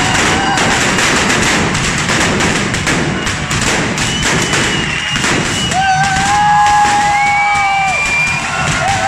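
Hand-held carretilla firework fountains hissing and crackling as they spray sparks, mixed with sharp bangs and thuds. From about six seconds in, shrill steady whistles are held for two to three seconds.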